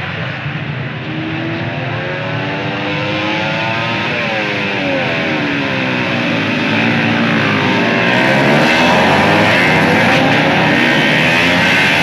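Several racing motorcycles accelerating hard through the gears. Their engine notes climb and drop back at each shift, overlapping one another, and the noise grows louder.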